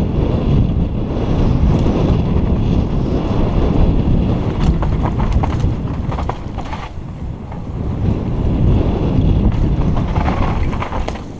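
Wind buffeting the camera microphone of a mountain biker riding fast downhill on a dirt trail, a steady low rumble, with a scatter of sharp clicks and rattles from the bike over rough ground around the middle.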